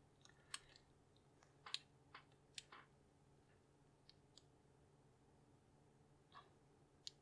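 Faint, scattered small clicks and taps, about nine spread over several seconds, from handling the opened iPod Nano and its parts, against quiet room tone.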